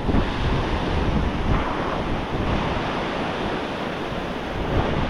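Ocean surf washing in on the beach, with wind buffeting the microphone: a steady rushing noise.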